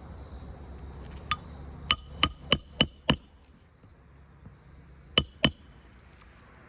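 Hammer driving a roofing nail through an asphalt shingle, six quick strikes with a metallic ring, then two more near the end.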